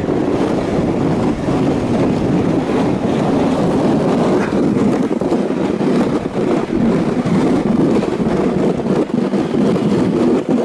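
Loud, steady noise of a kite-pulled scow sled sliding over snow, mixed with wind on the microphone.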